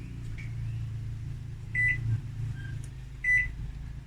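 Samsung AMW8113W microwave's keypad beeping twice, about a second and a half apart, as the cook time is programmed, over a steady low hum.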